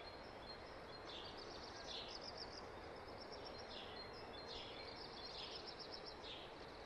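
Faint outdoor ambience: a soft steady background hiss with small birds giving short high chirps every second or so.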